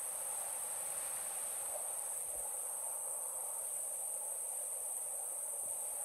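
Steady high-pitched insect chirring over the even rush of mountain river water.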